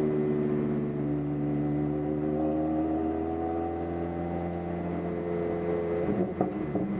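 First-generation MINI Cooper's four-cylinder engine heard from inside the cabin, pulling steadily under full throttle with its note rising slowly. About six seconds in the note breaks off briefly with a couple of clicks: an upshift.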